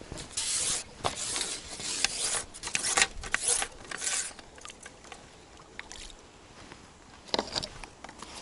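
A small hooked fish splashing and thrashing at the water's surface in a run of noisy bursts over the first four seconds as it is pulled in on the pole's line, with one more short splash about seven seconds in.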